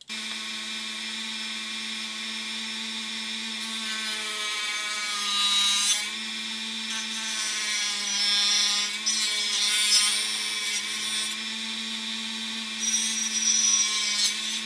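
Handheld rotary tool with a thin cut-off disc, starting abruptly and running at a steady high whine while it cuts into the black base of a 1:64 toy truck. The disc grinds louder and scratchier as it bites, about five seconds in, again around eight to ten seconds, and near the end.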